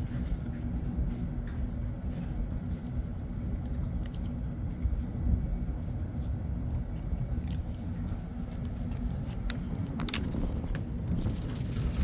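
Steady low rumble and hum of a ship's machinery running, with a few faint clicks about ten seconds in.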